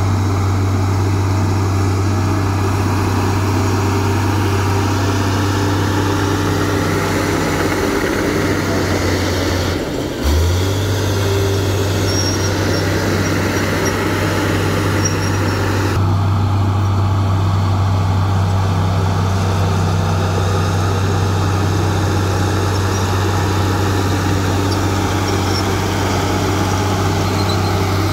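Komatsu D53A crawler bulldozer's diesel engine running under load as it pushes soil with its blade: a loud, steady low drone, briefly broken about ten seconds in.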